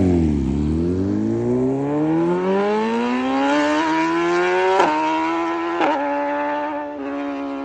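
BMW S1000RR inline-four running through an SC-Project CRT exhaust, revving up with its pitch climbing steadily. Two brief sharp breaks come about five and six seconds in, then the note levels off and starts to fade.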